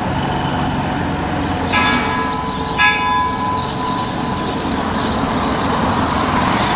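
Brass bell of the 4-4-0 steam locomotive York No. 17 struck twice about a second apart, each ring dying away, over a steady hiss.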